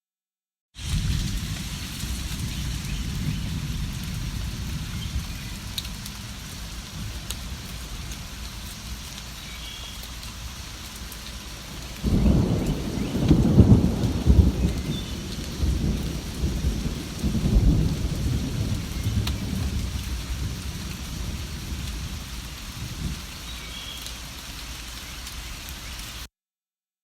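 Steady rain with rolling thunder. About halfway through, a loud low rumble of thunder swells and rolls on for several seconds, with another swell a few seconds later. The rain cuts in after a moment of dead silence and cuts off just as suddenly near the end.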